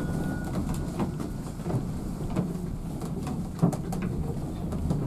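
A steam-hauled passenger coach running, heard from its driving cab: a steady low rumble with irregular clicks and knocks from the wheels on the track. The ring of a bell, sounded just before, dies away in the first half-second.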